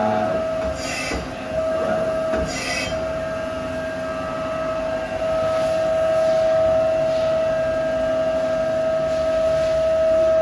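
Mori Seiki SL-403C CNC turning center running under power, with a steady high-pitched whine that drops out briefly twice in the first few seconds. Two short hisses come about one and three seconds in.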